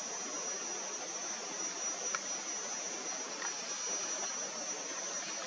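Steady open-air background hiss with a continuous high-pitched whine and a few faint ticks.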